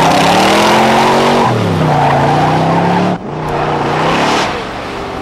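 Car engine accelerating hard through the gears. Its pitch climbs, drops at a gear change about a second and a half in, and climbs again. The sound cuts off abruptly about three seconds in, then climbs once more before falling back to a steady, quieter road noise near the end.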